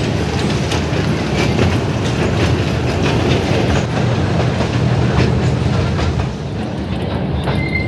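Toy train running along its track, heard from on board an open coach: a steady low rumble with repeated wheel clicks over the rail joints.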